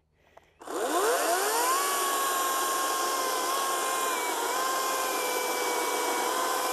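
Ryobi 40V 14-inch battery chainsaw's electric motor spinning up with a rising whine about half a second in, then running at a steady whine as the chain cuts down through a log, with the rasp of chain on wood.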